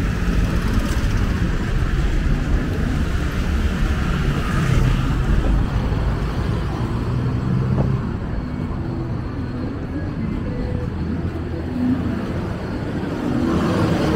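Street traffic passing close by: motorbikes and cars driving past with their engines running as a steady low rumble, easing off a little about halfway through.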